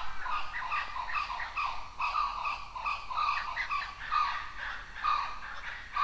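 Blue-winged kookaburra giving its harsh cackling call, a rapid unbroken run of short, coarse notes.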